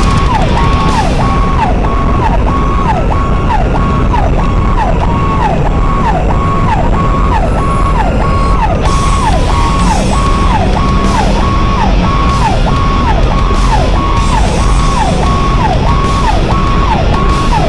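Ambulance siren sounding in a rapid repeating cycle, each a held high note that drops sharply. It is heard from inside the moving vehicle's cab, over a steady low rumble of engine and road noise.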